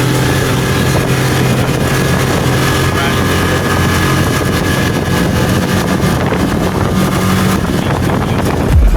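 Zip-line trolley pulleys running fast along the steel cable, a steady mechanical whir mixed with wind rushing over the microphone.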